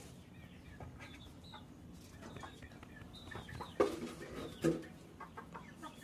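Chickens clucking at a low level, with two louder short clucks close together a little before the middle and around two-thirds of the way through.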